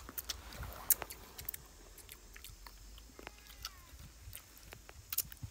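Close-up chewing and biting of crispy deep-fried chicken wings, with irregular sharp crackles from the fried coating.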